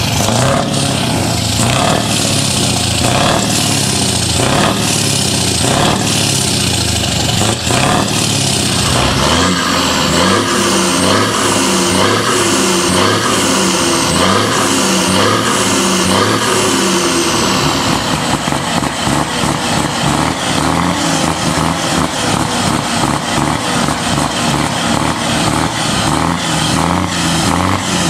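Diesel engines of tuned semi-trucks revving through loud exhaust pipes, their pitch rising and falling in repeated revs.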